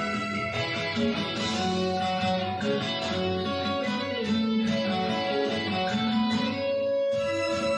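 Instrumental break of an enka song, with a guitar playing the melody over the backing band and no singing.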